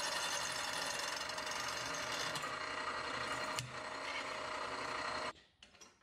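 Drill press running, its bit drilling 3/32-inch pin holes through a forged tool-steel knife tang that has been spheroidized so the bit can get through. A single click sounds about three and a half seconds in, and the sound cuts off suddenly near the end.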